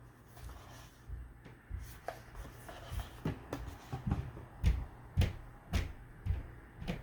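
Hands handling a cardboard jigsaw puzzle box and its contents: rubbing and shuffling with a series of short knocks, about two a second in the second half.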